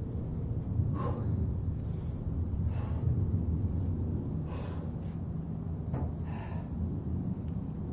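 A man breathing hard and gasping, winded from sets of push-ups and squats: about four heavy breaths, nearly two seconds apart, over a steady low rumble.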